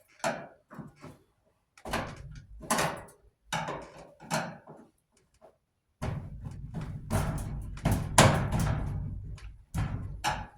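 Clanks, knocks and thumps of a clothes dryer's sheet-metal parts being worked on with hand tools while it is taken apart, in irregular bursts. From about six seconds in, a low steady hum runs underneath.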